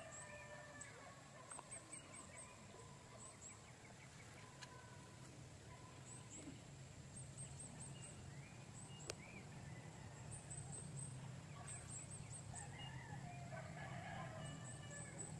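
Faint calls of farmyard fowl, at the start and again near the end, with a few short calls in between. Under them run a steady low hum and high, rapid chirping in short runs.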